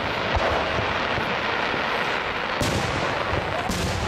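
Aerial fireworks shells bursting: three sharp booms, one just after the start, one past halfway and one near the end, over a steady rush of noise from the display.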